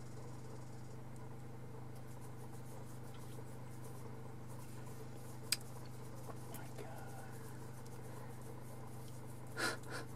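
Quiet background with a steady low hum, broken by one sharp click about halfway through and a short breathy sound near the end.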